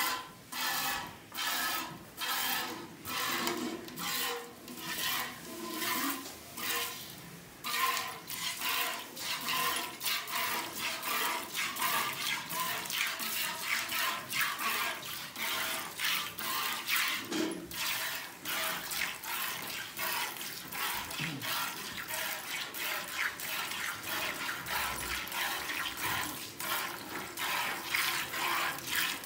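Cow being milked by hand: jets of milk squirting rhythmically into a steel pail that already holds milk. The squirts come about twice a second at first, then faster and closer together from about eight seconds in, when both hands are working the teats.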